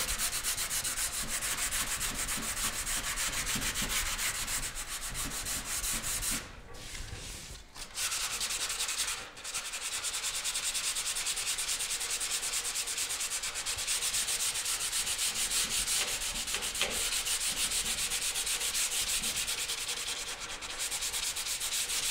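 Sandpaper, folded and held by hand, scrubbing the primer on a car dash panel in quick back-and-forth strokes. There are brief pauses about six to eight seconds in and again just after nine seconds.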